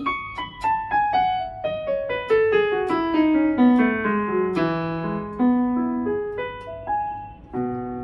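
Casio electronic keyboard on a piano voice playing the E major scale descending, one note at a time, stepping steadily down for about four and a half seconds. A few more single notes follow near the end.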